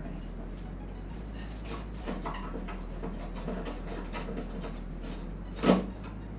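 Scooter disassembly with hand tools: scattered light clicks and knocks of metal parts being handled, and one sharp, louder clank about five and a half seconds in, over a steady low hum.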